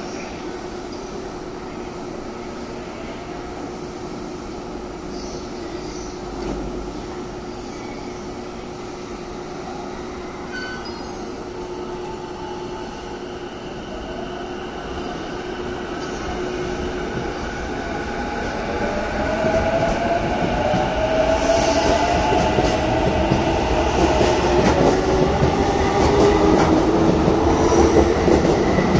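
E233-5000 series electric train standing with a steady hum, then pulling away a little past halfway: the traction motors' whine rises in pitch as it gathers speed, with the running noise growing steadily louder.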